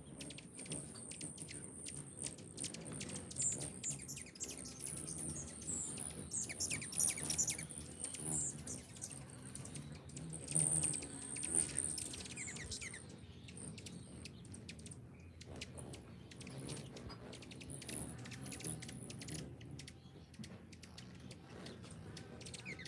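Many hummingbirds chipping at window feeders: a rapid scatter of high, sharp chip notes, busiest in the first dozen seconds and thinner after that.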